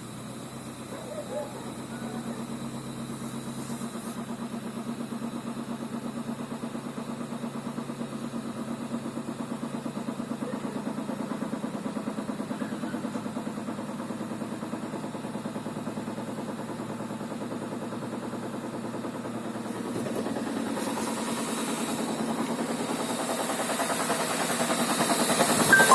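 Engine running with a rapid, furious knocking, the fault its owner is asking for help with. It grows louder after about twenty seconds and jumps sharply near the end.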